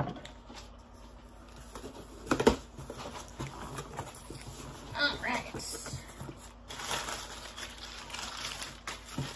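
A cardboard shipping box being opened, with a single knock about two and a half seconds in, then brown kraft packing paper being pulled out, crinkling and rustling through the last few seconds.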